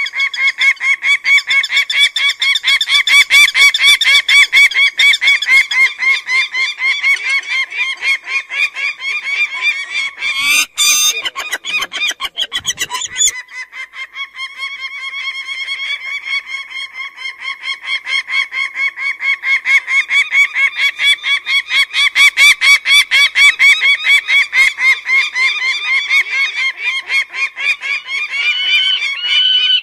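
Peregrine falcon giving its rapid, repeated kak-kak-kak call, a long unbroken run of notes. About ten seconds in, the calling breaks off briefly with a short noisy burst, then resumes.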